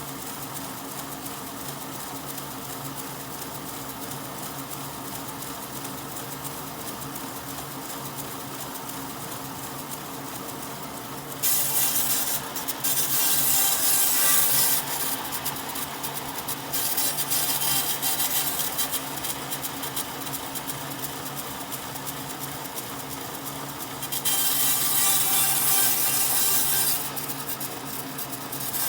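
Woodworking power tool running with a steady motor hum. From about 11 seconds in, loud hissing stretches of several seconds each come and go as the tool works the wood.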